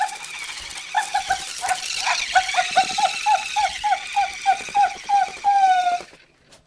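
Squeaker in a plush dog toy squeaking over and over as a puppy chews it, about three short squeaks a second at the same pitch, ending in one longer squeak before stopping suddenly.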